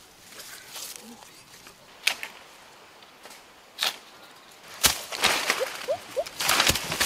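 Barefoot footsteps on dry leaves and grass, with a few sharp crackles and snaps, then dense rustling and crackling of leafy brush being pushed through for the last two seconds.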